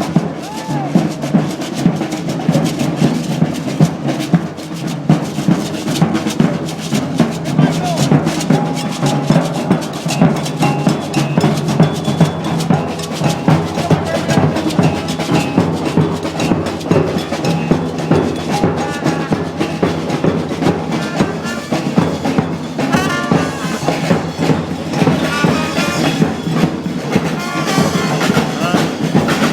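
Street band playing loud, drum-heavy music: snare and bass drums beat a steady, dense rhythm under low sustained notes.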